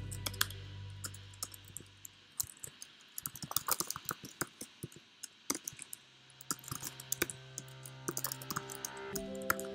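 Typing on a computer keyboard: quick, irregular key clicks. Quiet background music plays under it, dropping out for a few seconds in the middle and coming back near the end.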